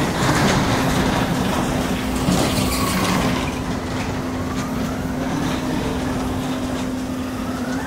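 Bolt powered roller coaster's electric ride vehicle running along the track: a motor whine that rises in pitch over the last few seconds, over a steady hum and a rush of wind.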